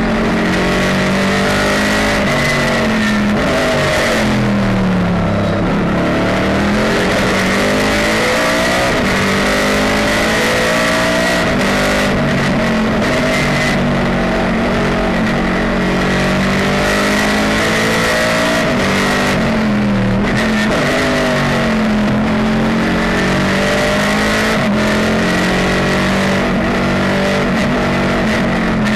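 Pontiac GTO race car's V8 engine running hard at racing speed, heard from inside the cockpit. The engine note falls and climbs back twice, about five and twenty seconds in, as the car slows for corners and accelerates out. A steady high whine sits over the engine.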